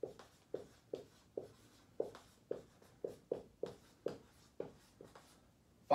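Dry-erase marker writing on a whiteboard: a run of short separate strokes, about two a second.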